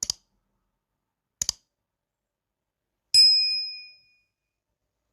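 Two quick double clicks, then a single bright metallic ding that rings for about a second and fades away.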